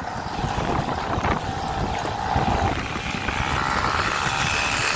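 Peugeot 103 moped's freshly rebuilt two-stroke engine running under way on its first runs, its pitch climbing about three seconds in, with heavy wind noise on the microphone.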